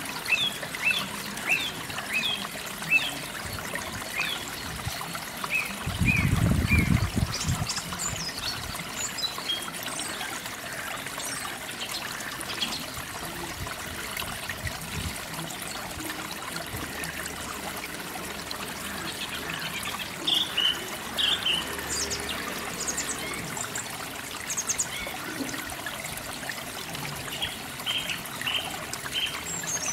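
Small birds chirping in short, quick calls, in runs near the start, around the middle and near the end, over a steady hiss. A brief low rumble comes about six seconds in.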